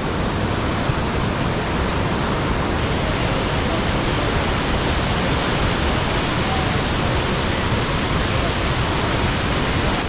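Steady rush of heavy falling and flowing water from a large waterfall and its stream in full flow.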